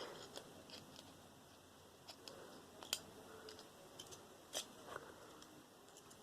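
A few faint, scattered clicks and small snaps of hand tools working pins off a microwave component, the loudest about three seconds in and again about a second and a half later.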